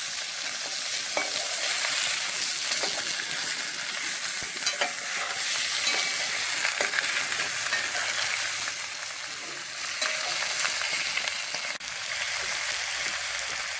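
Chicken pieces sizzling in hot sunflower oil in a cooking pot over a wood fire, browning over high heat. A steady hiss with a few faint ticks and one sharp click near the end.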